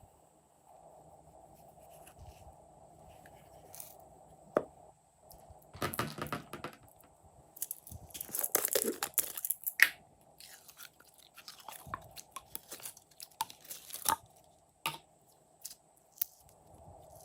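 Glossy slime being squished and stretched by hand: wet, sticky crackles and sharp little pops in irregular bursts, busiest in the middle.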